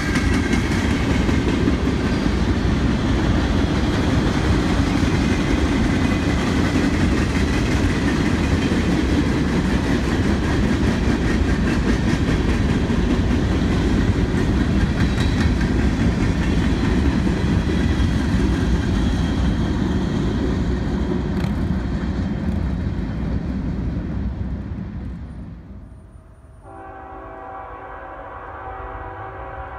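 Freight train of tank cars and covered hoppers rolling past: a steady rumble and clatter of wheels on rail. It fades about 25 seconds in, and near the end a quieter locomotive horn sounds a held chord.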